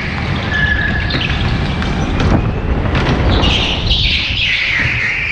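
Go-kart tyres squealing through a corner on a polished indoor track floor, in several short falling screeches in the second half, over the kart's steady low engine drone heard from on board.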